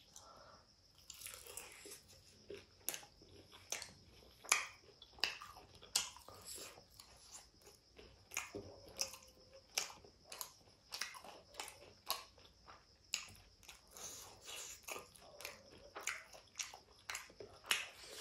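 A person biting and chewing fried chicken with the mouth close to the microphone: irregular sharp crunches and wet mouth clicks, roughly one or two a second.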